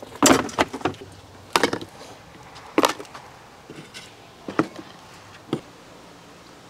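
Knocks and clatters of tableware and a plastic tub being handled and set down on a folding table: a loud cluster of bangs near the start, then four single knocks spaced about a second apart.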